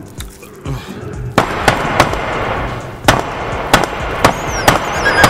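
Close, dense scuffling and crackling with about eight sharp knocks, starting over a second in and ending with a few faint high squeaks: the sound of fumbling at an ear to pull out a silverfish.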